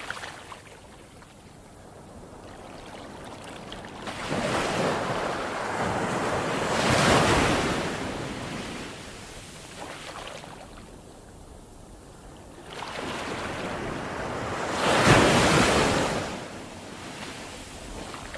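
Ocean waves breaking on a shore: the surf swells and falls back in slow surges, the two loudest breaking about seven and fifteen seconds in, with a quieter hiss of wash between them.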